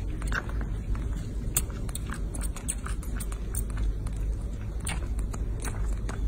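Baby macaque sucking milk from a feeding bottle: a quick, irregular run of small wet clicks and smacks, over a steady low rumble.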